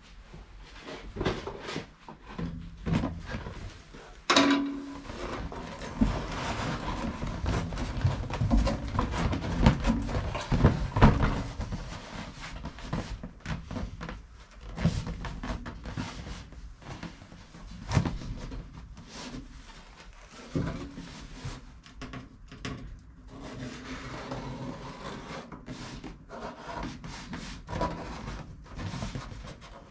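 Cereal-packet cardboard being handled, marked out and cut for a toeboard repair template: irregular rubbing and scraping with scattered knocks and clicks.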